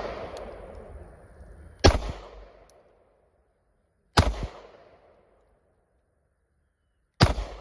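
Three 9mm pistol shots from a Springfield Armory Hellcat, about two to three seconds apart, each trailing off in echo; the echo of a shot fired just before is still fading at the start.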